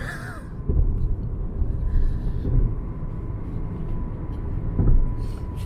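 Low, steady rumble inside a car with a faint steady whine, and a dull thump about a second in and another near the end.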